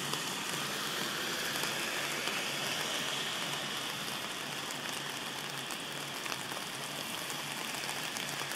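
Steady pattering and hiss of water on a flooded street, with many small scattered drops.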